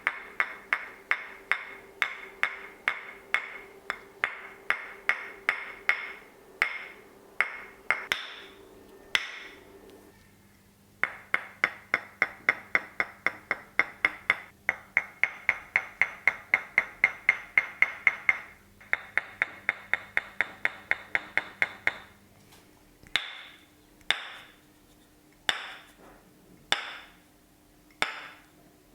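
Percussive massage strokes: sharp, rhythmic hand strikes, about three a second, then a faster run of about five a second, then slower single strikes more than a second apart near the end.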